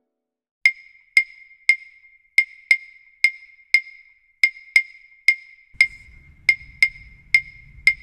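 Background music opening on wood-block-like percussion: sharp, pitched knocks about twice a second in an uneven rhythm. A soft low bass layer comes in about six seconds in.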